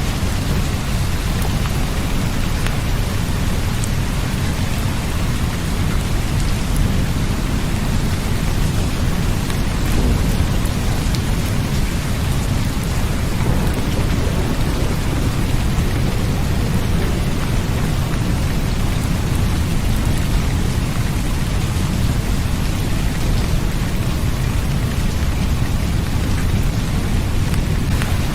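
Steady rain with a constant low rumble underneath and scattered drop ticks, even in level throughout.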